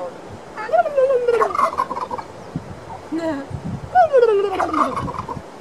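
Tom turkey gobbling twice, each gobble a quick rattling call that falls in pitch, about a second in and again about four seconds in.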